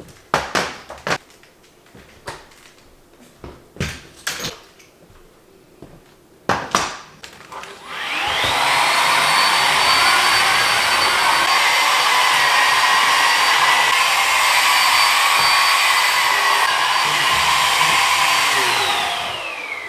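A few handling clicks and knocks, then about eight seconds in an electric hair dryer switches on. Its motor whine rises to a steady high pitch over a loud rush of air, runs for about ten seconds, and winds down near the end.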